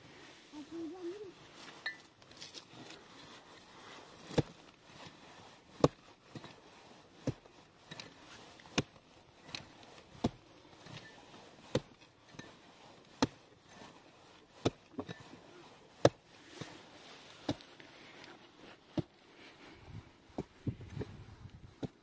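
A steady series of sharp knocks, one about every one and a half seconds, starting about four seconds in, with lighter clicks between them.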